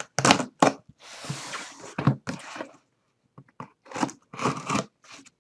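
A knife slicing through packing tape and cardboard along a shipping box's seam: a run of short rasping cuts, with one longer continuous rip about a second in.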